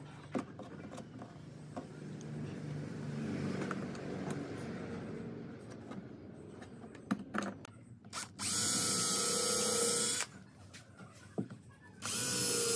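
Cordless drill running at full speed in two steady bursts of just under two seconds each, about eight and a half and twelve seconds in, working into a wooden frame held in corner clamps. Before that, light knocks and clicks of the corner clamps being set.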